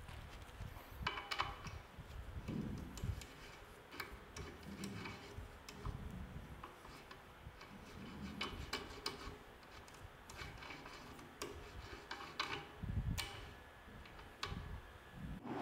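Irregular light metallic clicks, ticks and small knocks as an adjustment crank handle is turned and worked on its threaded shaft on a steel belt-grinder frame.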